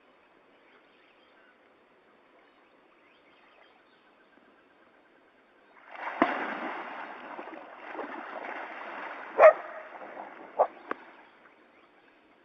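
Water splashing and churning, starting about halfway through and dying away near the end, with a few sharp knocks among it: something has gone into the river beside the pipe. The first half is near silence.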